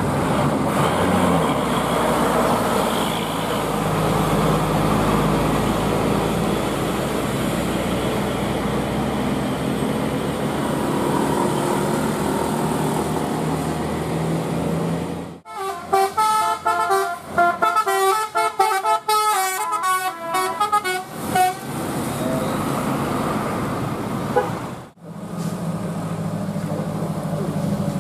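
A vehicle engine runs with road noise for about fifteen seconds. After a sudden cut, a telolet multi-tone musical horn plays a quick tune of short stepped notes for about six seconds. A second cut returns to the engine hum.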